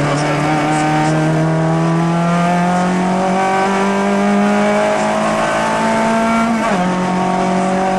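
Rally car's engine heard from inside the cockpit under acceleration: the revs climb steadily for about six and a half seconds, drop sharply at a gear change, then start climbing again.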